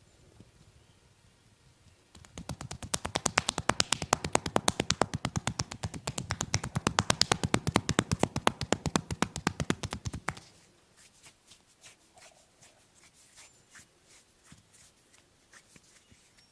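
Hands rapidly drumming and slapping on a person's body in percussive massage strokes, a fast even run of sharp slaps. It starts about two seconds in, swells twice, and stops abruptly about eight seconds later, leaving only soft scattered taps and rubbing.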